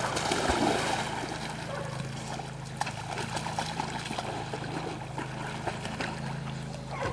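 Several dogs splashing into a pond and swimming out through the water, splashing and sloshing, busiest in the first second or so and then steadier.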